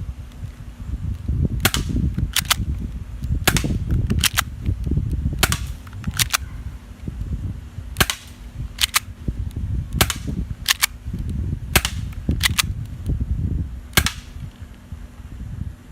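Airsoft guns firing about twenty sharp single shots, irregularly spaced and often in quick pairs, over a low rumbling noise.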